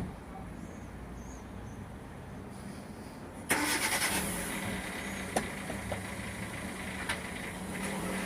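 Electric awning motor starting up a little over three seconds in and running with a steady hum, retracting the articulated-arm awning because the wind sensor has tripped. A few short knocks come from the moving awning.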